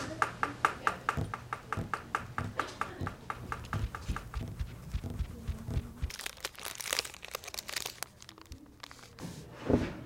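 Pencil tapping quickly on a notebook on a desk, about five taps a second, stopping about five seconds in. Then a plastic snack wrapper crinkles and tears as it is opened, and a thump comes near the end.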